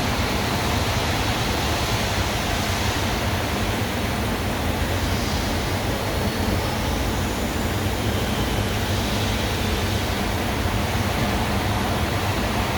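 Steady, even machine-shop noise: a continuous hiss with a low hum beneath it, and a faint high whine gliding up and down near the middle.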